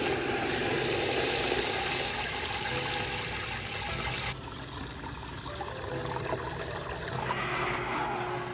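A rushing, splashing water noise over background music; the water noise drops off sharply about four seconds in, leaving the music more exposed.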